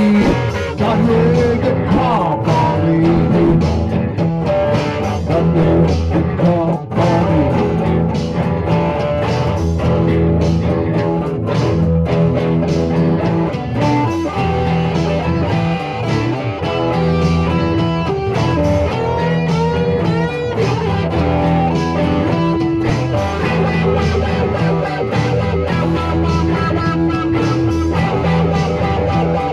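Band recording of a blues-rock song with prominent guitar over a steady beat.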